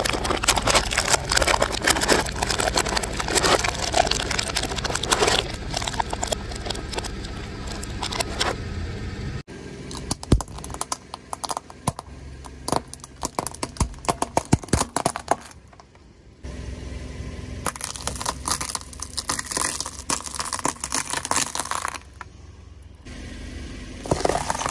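A car tyre rolls over objects on asphalt and crushes them. First aluminium foil trays crumple and crinkle in a dense run, then after a sudden cut a row of plastic hair claw clips snaps with separate sharp cracks.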